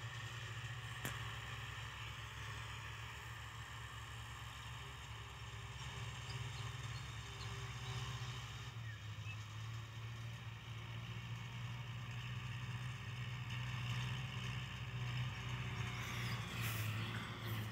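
Kubota L5018 tractor's diesel engine running steadily under load, driving a rotary tiller in first gear through grassy ground. The drone grows louder in the second half as the tractor comes closer.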